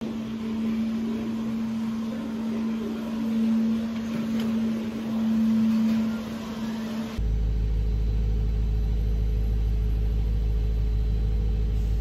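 Shop ambience with a steady hum; then, from about seven seconds in, the loud steady low rumble of a moving vehicle heard from inside its cabin.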